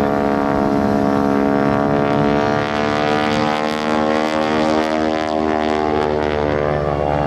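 Stearman biplane's radial engine and propeller running steadily at high power in flight, a constant note that wavers only slightly in pitch around the middle.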